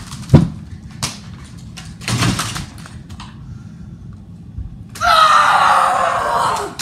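Thumps and knocks of a boy in football shoulder pads and helmet crashing into a padded chair cushion, the hardest hit coming just after the start. Near the end comes a loud, harsh cry of about a second and a half whose pitch slides down.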